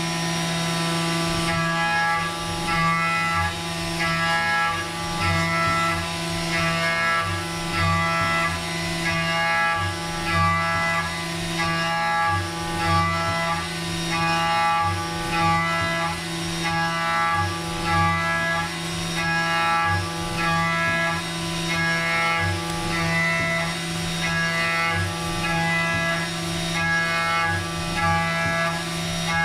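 Background music with a steady low drone and a repeating pattern of held notes over a regular low pulse.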